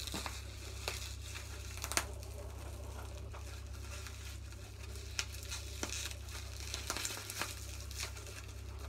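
Packaging crinkling and rustling in the hands during an unboxing, with scattered small clicks and taps, over a steady low hum.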